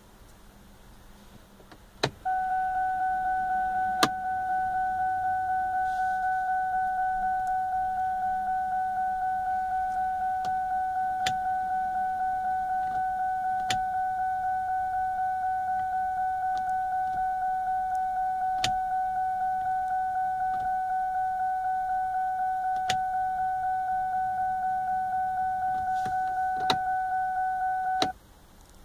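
A 2003 Ford Taurus's headlamps-on warning chime: one steady electronic tone, slightly pulsing. It starts with a click of the headlight switch about two seconds in and stops with another click near the end. A few single sharp clicks fall in between.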